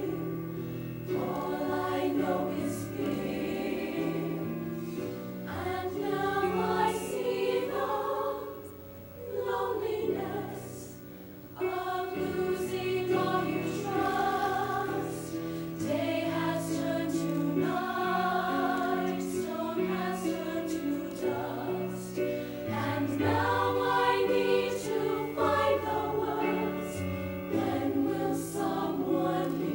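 High school show choir singing sustained chords in harmony, with instrumental accompaniment. The sound drops to a quieter passage about eight seconds in and comes back in full about three and a half seconds later.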